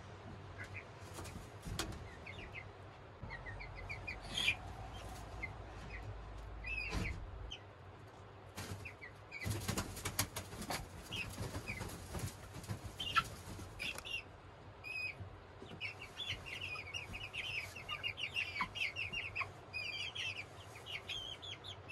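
Young chickens peeping in short high chirps, which come thick and fast over the last several seconds, with wings flapping and rustling in the sawdust bedding.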